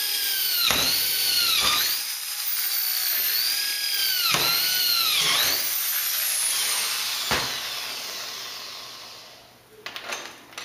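Power drill drilling bolt holes down through the trailer's floor sheet and aluminium frame: a high-pitched motor whine that dips in pitch several times as the bit loads up, then winds down and fades. A few sharp clicks near the end.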